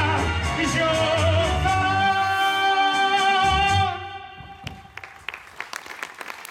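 A song with band accompaniment ends on a long held sung note that cuts off about four seconds in. An audience then starts clapping.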